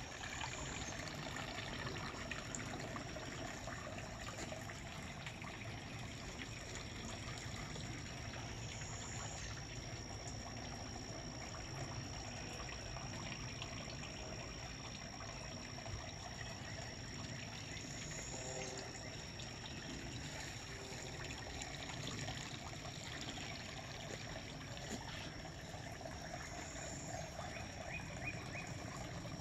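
Outdoor garden ambience: a steady high-pitched insect drone over a soft rustling hiss, with a brief higher chirp about every nine seconds.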